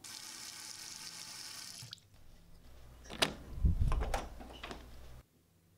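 Water running steadily, like a tap, for about two seconds, then stopping sharply. A low hum follows with a few sharp clicks and knocks, and the sound cuts off abruptly near the end.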